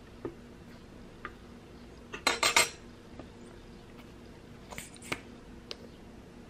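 Kitchen tongs clattering as they are set down on a hard countertop: a quick cluster of clinks a little over two seconds in, with a few lighter clicks later.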